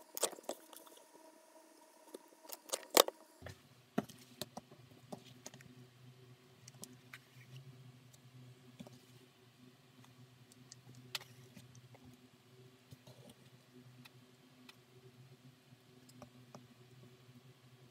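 A five-prong leather pricking iron is struck with a mallet to punch stitching holes through leather. There are a handful of sharp taps in the first three seconds, the last one the loudest. After that come faint ticks and rustles of hands handling the leather over a steady low hum.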